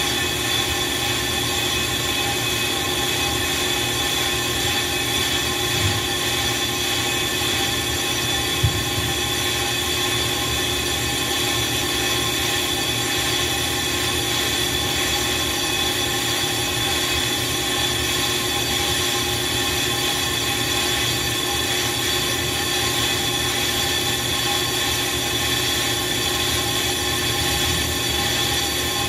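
Brake lathe turning a brake disc rotor as it refaces it: a loud, steady metallic whine with a high, squeal-like ring from the cutting bit on the disc.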